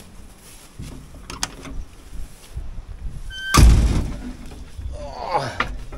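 The steel cab door of a John Deere 690C excavator is opened, with a loud metal clunk about three and a half seconds in, followed by a short creak near the end.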